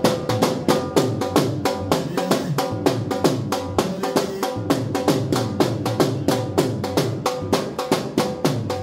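Fast, steady drumming, about five even strikes a second.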